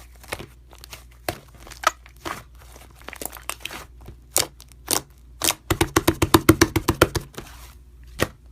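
Slime being squeezed and poked by hand, giving sharp crackling pops, with a quick run of about eight pops a second partway through.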